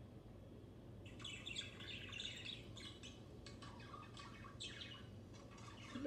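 Budgerigar chirping and warbling: a fast, busy run of short chirps that starts about a second in and keeps going.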